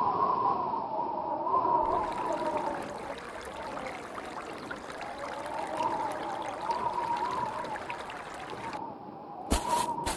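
A steady wash of water, a sea or stream ambience sound effect, starting about two seconds in after a short wavering sound. Near the end it gives way to a few sharp pops or knocks.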